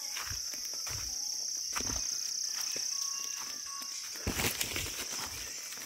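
Steady high-pitched drone of insects in tropical forest, with footsteps crunching and rustling through dry leaf litter, heavier from about four seconds in.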